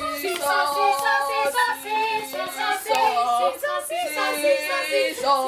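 Three girls singing a song together, several voices on different notes at once.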